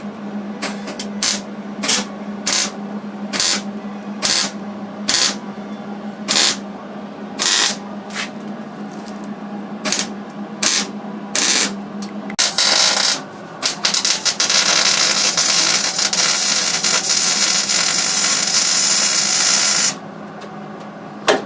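Welding arc crackling in about a dozen short bursts, like tack welds, then one continuous bead of about six seconds near the end, as the replacement crossmember is welded along its sides. A steady low hum runs underneath.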